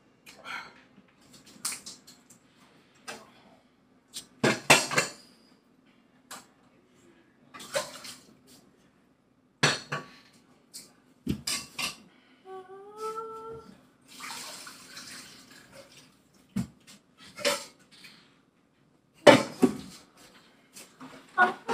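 Dishes, bowls and cutlery clinking and clattering at irregular intervals as a kitchen is cleaned up. A short spell of running water comes about two-thirds of the way in.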